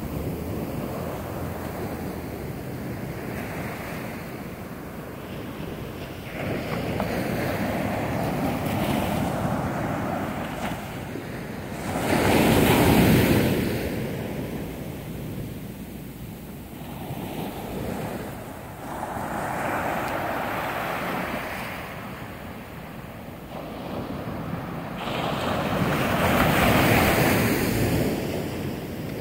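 Ocean surf breaking on a beach, the rush of water swelling and fading in repeated surges every few seconds. The loudest surge comes about thirteen seconds in.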